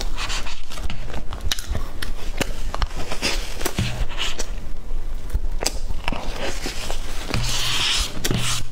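Close-miked eating sounds from a lapel microphone: wet mouth clicks and smacking while chewing soft cream cake, mixed with a metal spoon tapping and scraping across the plate. The clicks come thick and irregular.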